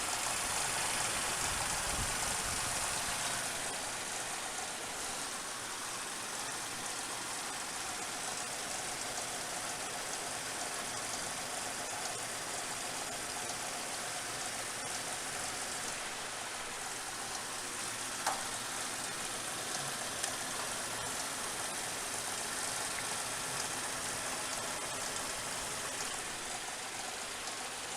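Suzuki Grand Vitara's 2.5-litre V6 idling in the engine bay, heard as a steady even hiss, with two brief clicks about two-thirds of the way in. The engine has an intermittent misfire on one injector, which the mechanic suspects is a poor electrical contact.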